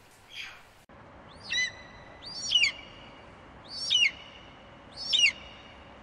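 An eagle calling four times, about a second or so apart; each call is a high cry that slides down in pitch.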